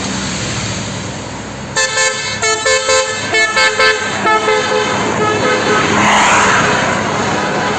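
Bus telolet horn of the 'basuri' type, a set of multi-tone air horns, playing a quick tune of short notes that change pitch, starting about two seconds in and running for about four seconds over traffic noise. A short burst of hiss-like noise follows near the end.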